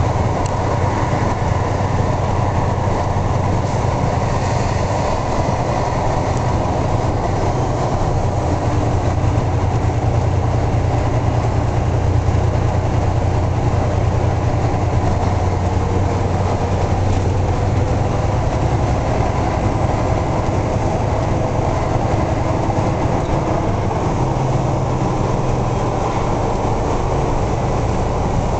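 Heavy truck's diesel engine and tyres heard from inside the cab at highway speed: a steady low drone with road rumble and hiss.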